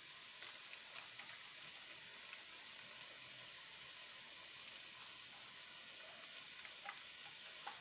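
Broccoli sizzling in oil in a hot electric skillet, with water squirted in to steam it: a steady, even hiss with a few faint crackles.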